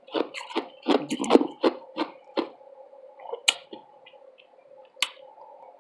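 Ice being crunched between the teeth close to the microphone. A quick run of crunches, about three a second, over the first two and a half seconds, then two sharp, separate clicks.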